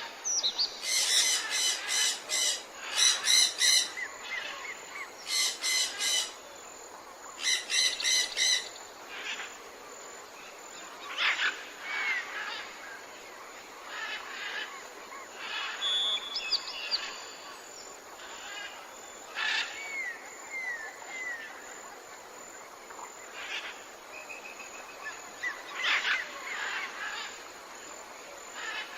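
Exotic birds calling in a tropical forest ambience: four loud bursts of rapid repeated notes in the first nine seconds, then scattered shorter calls and a few short falling whistles over a steady background hiss.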